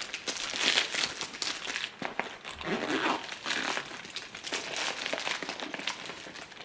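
Toiletries being handled and packed into a toiletry bag: plastic crinkling and rustling, with small clicks and knocks.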